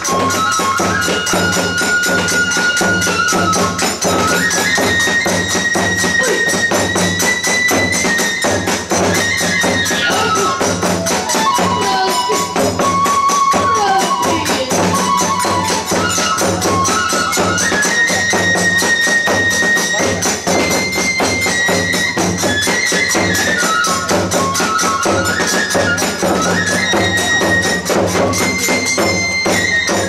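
Hiroshima kagura accompaniment: a bamboo flute plays a held, stepping melody over constant clashing of small hand cymbals and beats on a large barrel drum and a small stand drum.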